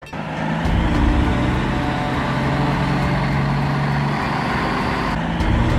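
Truck engine running steadily, a sound effect laid over footage of a silent diecast toy truck. It rises over the first second, and its low hum shifts slightly in pitch around four seconds in.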